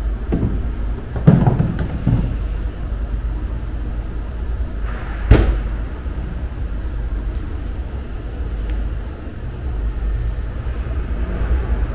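The plastic dirty-water tank of a Xiaomi X20+ robot vacuum's base station is set into its slot with a few hollow thumps in the first two seconds. About five seconds in, the station's lid shuts with a sharp clack, all over a steady low hum.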